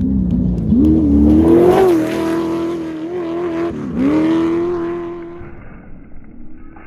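Off-road race vehicle's engine passing close by at speed, revving high. Its note dips briefly about four seconds in and climbs back, then fades away.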